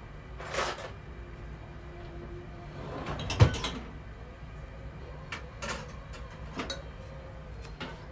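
A utensil knocking and scraping against a cooking pan a few times, with one sharp loud knock about three and a half seconds in, over a steady low hum.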